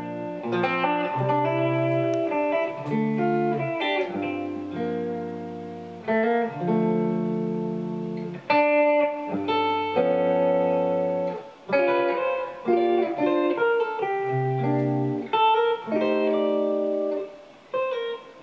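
Electric guitar, a Fender Telecaster played through a digital amp modeller, playing a run of chords. Each chord is struck and left to ring for a half second to two seconds before the next, with a few quick single notes in between.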